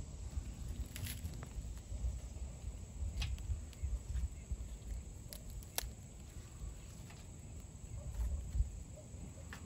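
Wind rumbling on the microphone, with a few light, sharp wooden clicks and knocks as chunks of dry punk wood are picked up and set on a tin-can hobo stove.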